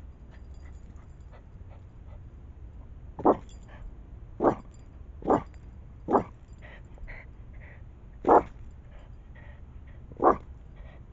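Dog barking at an opossum: six short single barks, a second or two apart, starting about three seconds in.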